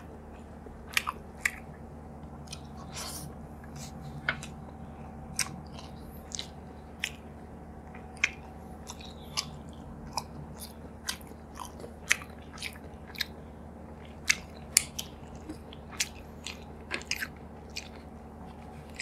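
A person chewing mouthfuls of rice and vegetable curry eaten by hand, with irregular sharp mouth clicks and smacks about one or two a second, over a steady low hum.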